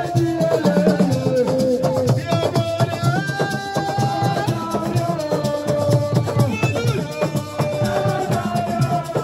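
Music: a held, stepping melody over dense, fast percussion with a rattle or shaker.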